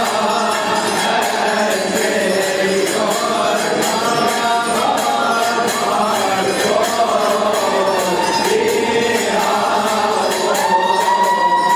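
Voices singing a church hymn together, with metal percussion keeping a steady beat, ending on a long held note.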